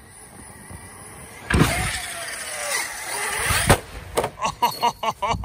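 ARRMA Outcast 6S RC truck's brushless motor and tyres: quiet at first, then a sudden burst of full throttle about a second and a half in, its whine falling as the truck flies off the ramp, and a sharp bang about two seconds later as it lands, followed by short choppy bursts.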